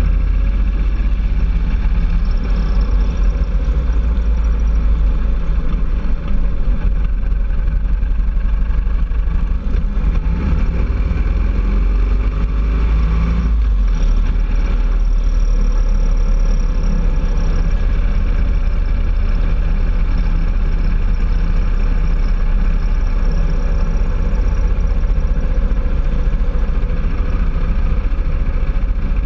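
Touring motorcycle engine running steadily at road speed, with wind and road noise over it. The engine note shifts about halfway through.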